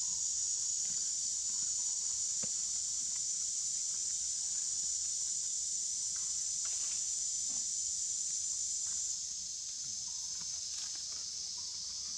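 Steady high-pitched insect chorus that eases slightly about nine seconds in, with a few faint clicks.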